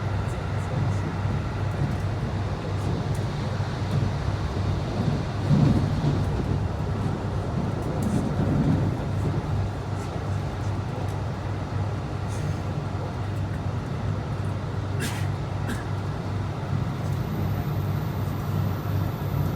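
Inside a moving passenger train: a steady low rumble of the wheels and running gear on the rails, with a couple of faint clicks about 15 seconds in.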